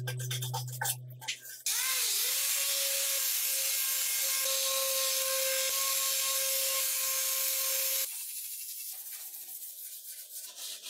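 Body filler on a steel scooter panel being sanded. It starts with a few scratchy hand-sanding strokes. About two seconds in, an electric sander winds up and runs with a steady whine and hiss for about six seconds, then cuts off. Softer back-and-forth hand-sanding scrapes follow.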